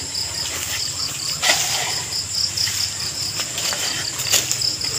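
Crickets chirping in a rapid, even pulse, about five chirps a second, with a steady high drone. A couple of short scrapes and knocks come from soil being dug out of a hole by hand, one about a second and a half in and one near the end.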